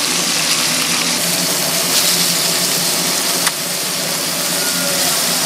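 Steady hiss over a low, even mechanical hum from the fish-grilling stall's kitchen equipment, with a single faint click about three and a half seconds in.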